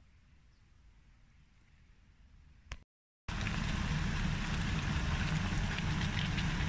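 Pork rib bones sizzling and crackling in a hot pan, frying in their sauce before stewing. It starts abruptly a little over three seconds in, after a faint quiet stretch ended by a single click.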